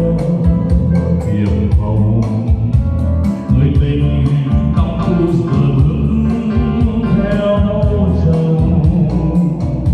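Song with a singer over a band, with a steady beat and heavy bass.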